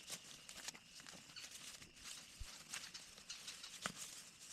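Footsteps and rustling on the woodland floor while a tent's rain fly is handled and clipped down at a corner: irregular scuffs and light clicks, with a dull thump about halfway through and a sharper knock near the end.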